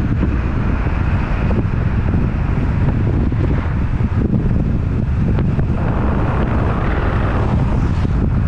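Wind buffeting the microphone of a moving car, over the car's steady road and engine noise.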